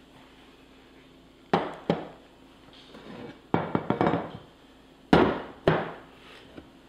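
Glass kitchenware knocking and clinking on a countertop as dishes are set down and moved: about six sharp knocks, coming in three pairs.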